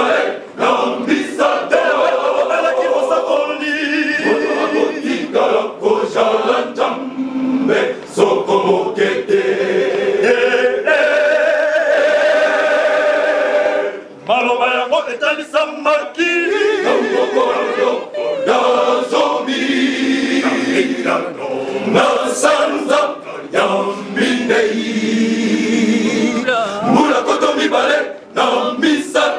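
Men's choir singing a cappella in several voices, with short breaks between phrases about halfway through and near the end.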